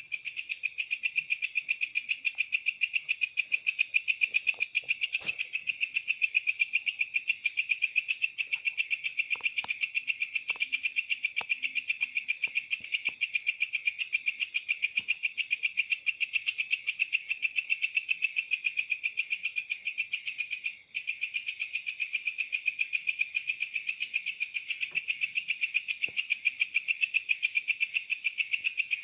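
Night insect, likely a cricket, chirping in a fast, even pulse of several chirps a second, high-pitched and unbroken apart from a brief gap about two-thirds of the way through.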